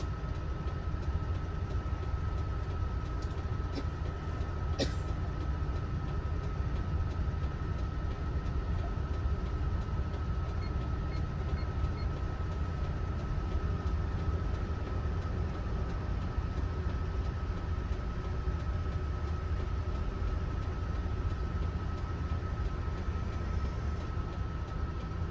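Steady low rumble of a Mitsubishi Fuso Aero Ace bus heard from inside the cabin, engine and road noise under way, with a thin steady high whine. There is a single sharp click about five seconds in.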